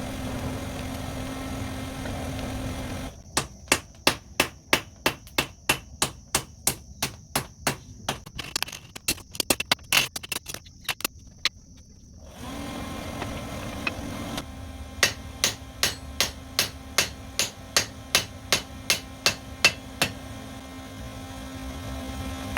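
Hammer striking metal in steady, evenly spaced blows, about three a second, in two long runs with a pause between them, over a steady low hum.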